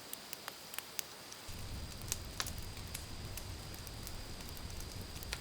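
Wood fire crackling with scattered sharp pops, joined about a second and a half in by a low steady rumble.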